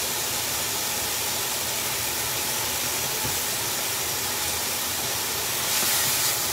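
Thin-sliced bulgogi beef sizzling steadily as it sears and chars in a hot pan, getting a little louder near the end.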